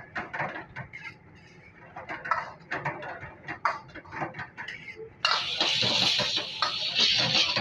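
Metal spatula scraping and clacking against a steel wok as chow mein noodles are stir-fried, a quick run of sharp strokes. About five seconds in, a loud steady sizzle from the wok over a high gas flame comes in suddenly.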